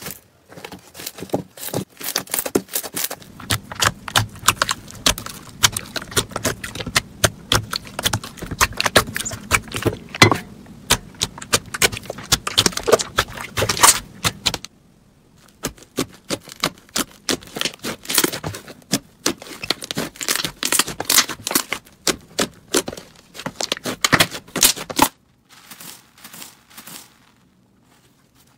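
Slime being squeezed, pressed and kneaded by hand: a dense run of sticky, wet clicks and pops. The sound breaks off and changes character about halfway through and again near the end.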